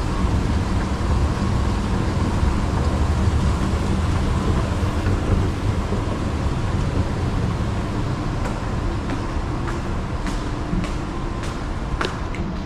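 Steady low rumble and hum of a running escalator and the mall's machinery. From about eight seconds in, footsteps click on a hard tiled floor, roughly two a second.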